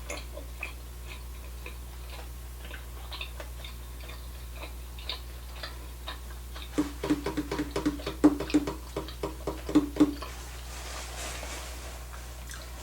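Close-miked eating sounds of someone chewing sushi: scattered soft mouth clicks, then a faster run of chewing clicks from about seven to ten seconds in, over a steady low hum.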